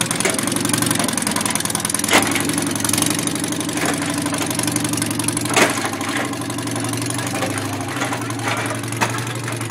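Engine of a legged walking robot machine running steadily, with three loud sharp knocks at even spacing of about three and a half seconds.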